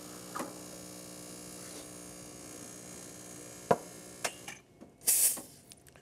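La Spaziale Mini Vivaldi espresso machine's vibration pump humming steadily as it pulls a programmed double shot, with a few light clicks. About four and a half seconds in, the pump cuts off as the volumetric dose ends, and a brief hiss follows.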